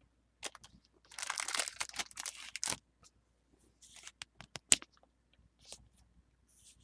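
Crinkling of thin plastic packaging handled by hand for about two seconds, then scattered light clicks and taps, with one sharp click about two thirds of the way through.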